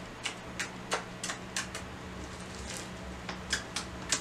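Blue homemade glue slime, made with shampoo, pressed and squished under the fingertips for a click test, giving about a dozen sharp little clicks and pops at irregular intervals.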